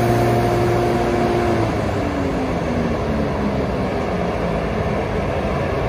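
Class 92 electric locomotive standing with its on-board machinery humming steadily; about a second and a half in, the hum falls in pitch as a machine winds down, leaving a steady rumble.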